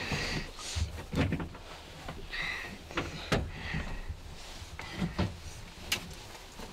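A few sharp knocks and bumps as people shift about inside a small wooden hunting blind, with soft breathy hissing between them.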